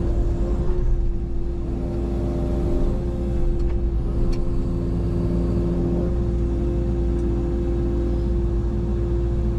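Engine of a land-clearing machine running steadily at an even speed, with a few light clicks about four seconds in.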